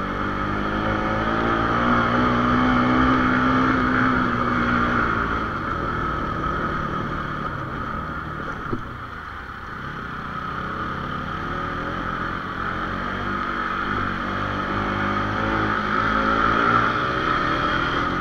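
Bajaj Pulsar 220's single-cylinder engine running as the motorcycle rides along a rough dirt road, its note rising and falling with the throttle and easing off a little past the middle. There is one short knock about halfway through.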